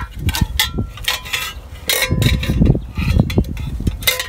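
Stainless steel camping plates clinking and scraping against each other as they are handled and stacked, a string of short metallic clicks, some with a brief ring.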